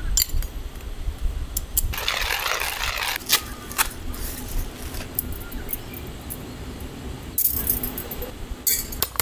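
Coffee gear being handled: clicks as the lid goes onto a steel hand coffee grinder, a paper coffee filter rustling about two seconds in, and a collapsible coiled-wire dripper jangling near the end.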